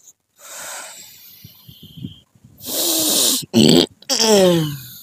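A man's breath and throat sounds: a hissing breath, then a rasping exhalation, a loud short burst about three and a half seconds in, and a drawn-out groan that falls in pitch near the end.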